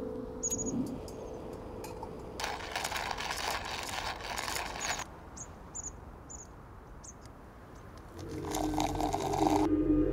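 Hot water poured from a camp pot into a coffee press, hissing for a couple of seconds, with a shorter burst of the same noise near the end. Short high bird chirps come again and again throughout, and a low music drone starts near the end.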